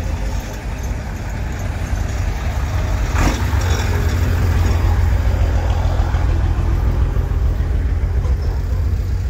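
A motor vehicle's engine running close by: a steady low rumble that grows louder about three seconds in, with a brief hiss at about the same point.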